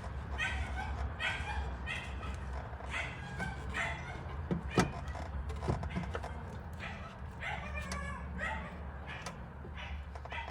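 A dog whining and yipping in short high-pitched cries, again and again, with a few sharp metallic knocks, the loudest about halfway through.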